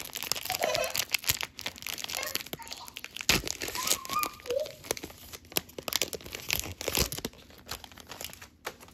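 Crinkling and crumpling of a plastic trading-card pack wrapper as gloved hands pull the cards out and bunch the wrapper up, with a couple of sharper knocks about three and seven seconds in. It dies down near the end.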